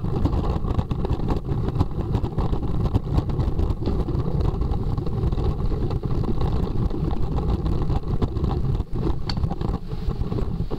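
Scooter wheels rolling over flagstone paving: a loud, steady rumble with many small knocks as the wheels cross the uneven stones.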